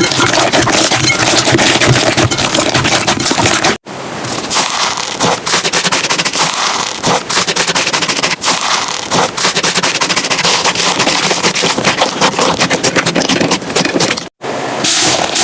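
Slime being squeezed and pressed close to the microphone, with dense crackling and popping. The sound cuts out for an instant twice, about 4 and 14 seconds in.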